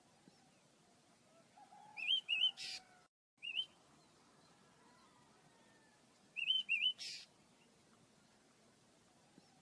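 Pet birds chirping: a short phrase of quick high chirps ending in a harsh buzzy note, heard twice, about 2 seconds in and again about 6.5 seconds in. The sound drops out completely for a moment just after 3 seconds.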